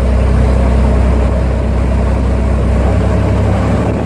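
A boat's engine running steadily under way, a deep hum with a rushing noise of wind and water over it.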